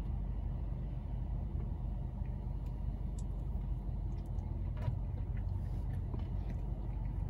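Steady low rumble of a car, heard from inside the cabin, with a few faint clicks of chewing as a doughnut is eaten.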